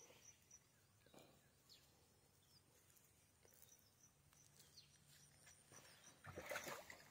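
Near silence in outdoor ambience, with faint high chirps from a small animal repeating about five times a second. They stop about half a second in and return around the third second. A brief rustle, the loudest sound, comes about six seconds in.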